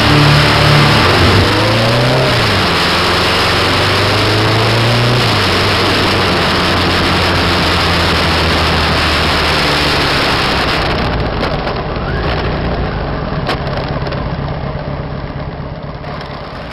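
Kawasaki ZR1100's air-cooled inline-four engine rising in pitch about two seconds in, then running at a steady pitch under way, with wind rushing over the microphone. It fades out over the last few seconds.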